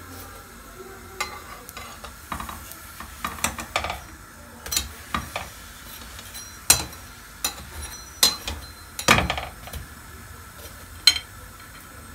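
Metal tongs clicking and scraping against a frying pan and a plate, in irregular sharp knocks, the loudest about seven and nine seconds in, over the light steady sizzle of a gözleme frying in a little oil.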